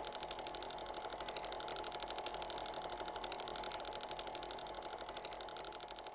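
A small machine running with a steady, fast, even mechanical rattle.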